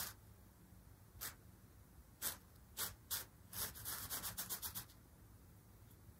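Twine dragged across a thin, crinkly fabric sheet, rustling in short separate swishes, then a quick flurry of rustles in the last couple of seconds before it goes still.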